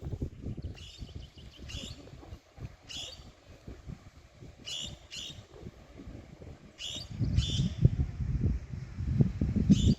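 A bird giving short, high calls, repeated every second or two, over a low rumble that grows louder in the second half.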